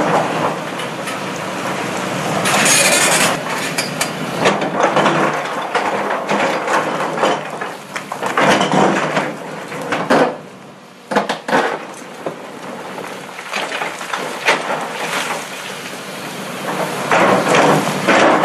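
Tracked excavator digging its bucket into a barge load of riprap stone: rocks clattering, scraping and grinding against each other and the steel barge in an irregular run of knocks, over a steady low engine hum. The clatter drops off briefly about ten seconds in, then picks up again.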